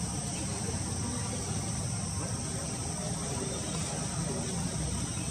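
Steady chorus of insects, a continuous high-pitched buzz, over a low rumble.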